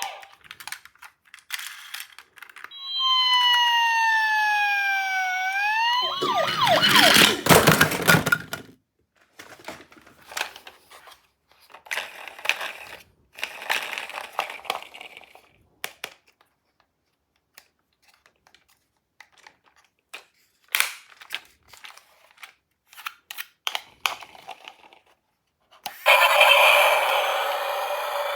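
Toy ambulance's electronic siren: one tone sliding slowly down and then sweeping quickly up, followed by a loud plastic clatter. Then scattered clicks and rattles of small toy cars being handled, and near the end a loud steady whirring noise starts.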